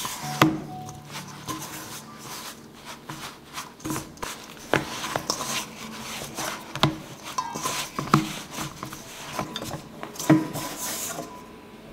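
Hands rubbing and pressing crumbly flour dough in a stainless steel mixing bowl: a rasping rub broken by irregular knocks of fingers and dough against the metal bowl.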